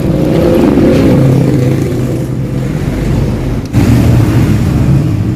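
Yamaha RX-King two-stroke single-cylinder engine running through its original exhaust, which has been hollowed out (bobok) for the crisp, raspy 'garing ngorok' note. It is revved, the pitch drifting, and drops off briefly about two-thirds through before picking up again.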